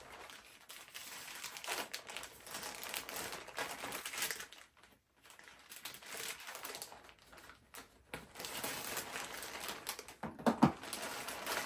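Plastic mailer bag crinkling and rustling as it is handled and cut open with scissors, with one louder knock near the end.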